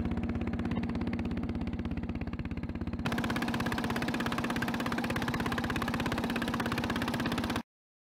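Small fishing boat's engine running steadily with a rapid, even pulse. It gets louder about three seconds in and cuts off abruptly near the end.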